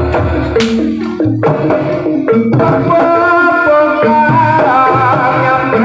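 Javanese gamelan-style music of the kind that accompanies barongan and bantengan dancing: hand drums beating steadily under a melody on pitched instruments that gets busier after about two and a half seconds, with a couple of sharp cracks in the first half.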